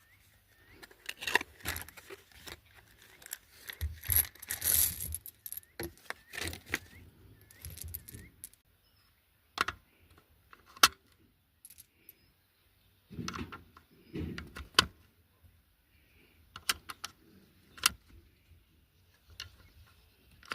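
Metal clinking and rattling with several sharp clicks scattered through, the sound of metal gear being handled; none of the clicks is loud enough to be a gunshot.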